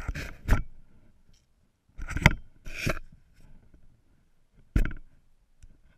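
Handling noise on an action camera: a cloth or glove rubbing and knocking against the camera housing, heard in three short bursts (at the start, a couple of seconds in, and near five seconds) with quiet between.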